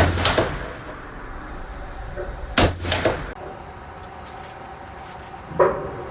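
Rifle shots: one at the start and another about two and a half seconds in, each followed shortly by a second report. Near the end comes a single ringing metallic clang.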